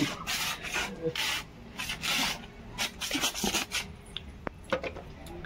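Hands rubbing wet Holi colour onto a face close to the microphone: a series of rasping rubbing strokes, roughly one a second, dying away in the last second or so.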